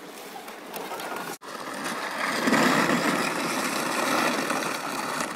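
Plastic sled sliding over rough outdoor rink ice, a steady scraping hiss that grows louder about two seconds in.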